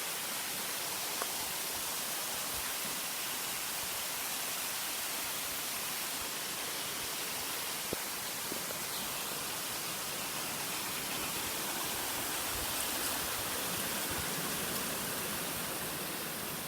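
Steady rushing of water from a stream and waterfall, an even hiss with a couple of faint clicks.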